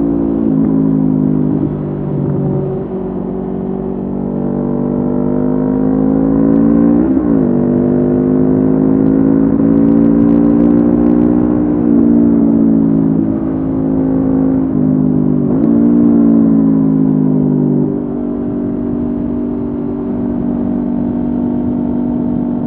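Honda CB500F's 471 cc parallel-twin engine through a Mivv GP Pro slip-on exhaust, running under way. The note climbs steadily with gear changes at about 7 and 16 seconds in, then the rider eases off the throttle and the pitch drops near the end.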